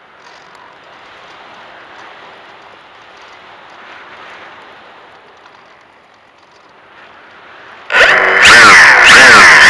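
Faint, steady rush of airflow and motor noise picked up by the onboard camera of a fixed-wing FPV plane in flight. About eight seconds in, a much louder sound with several swooping tones cuts in suddenly.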